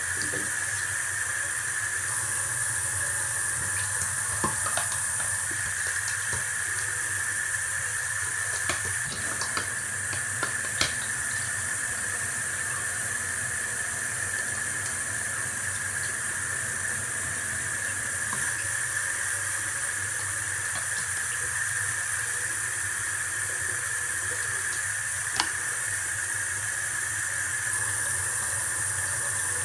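Tap water running steadily into a sink, with a few sharp knocks and clicks of things being handled under it.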